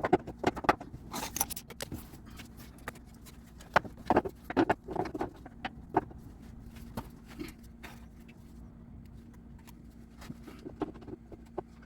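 Irregular clicks, clinks and knocks of hand tools and metal parts being worked under a car, some in quick runs, over a faint steady hum.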